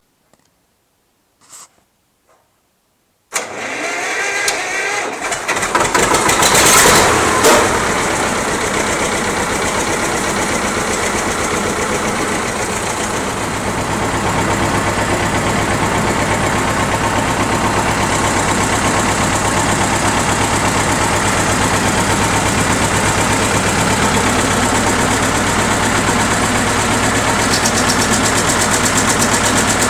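T-25 tractor's two-cylinder air-cooled diesel, fitted with an exhaust turbo whistle, starting about three seconds in, revving briefly, then running steadily at idle.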